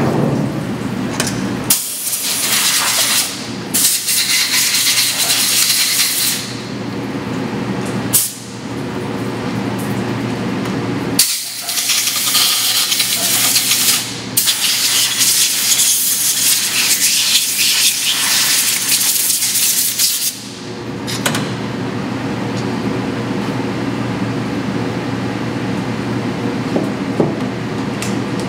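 Compressed-air blow gun blasting in four long hissing bursts of a few seconds each, blowing chips and coolant off a vise inside a CNC milling machine. For the last several seconds only a steady machine hum remains.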